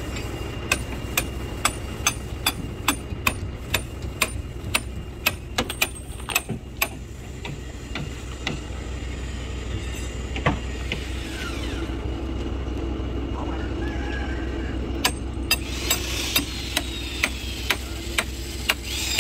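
Hammer blows, about two to three a second, in two runs: one through the first several seconds and one near the end. A steady low hum runs underneath.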